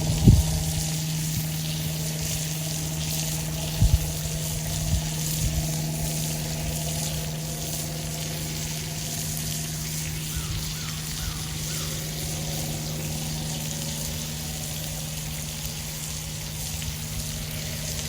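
Burger patties sizzling over hot campfire coals, a steady hiss, with a steady low hum underneath and a few soft knocks.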